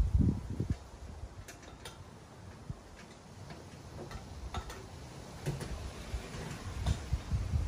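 Outdoor ambience with gusts of wind rumbling on the microphone, strongest at the start and again near the end, and a few faint scattered clicks.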